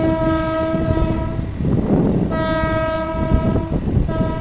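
Horn of a Nepal Railways diesel multiple-unit train sounding two long steady blasts, with a third starting near the end, over the low rumble of the train running on the track.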